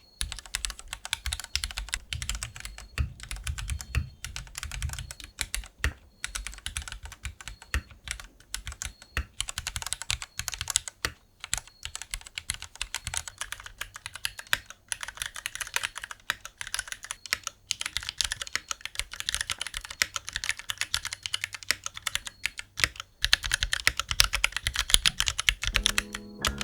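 Fast, continuous typing on an M9N 40% custom mechanical keyboard (top-mount, hot-swap), a dense run of key clicks with a few brief pauses.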